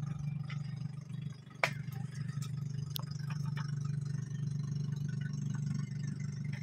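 A steady low hum with scattered light clicks and rattles, and one sharp knock about one and a half seconds in.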